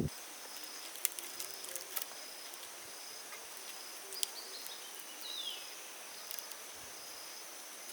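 Quiet outdoor field ambience: a faint insect pulsing in short, evenly spaced high buzzes, a few light clicks, and a short falling bird chirp about five seconds in.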